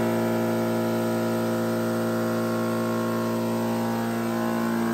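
A machine motor running with a steady, even hum.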